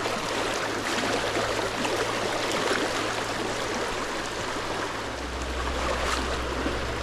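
Stream water running over rocks in shallow pocket water, a steady rushing.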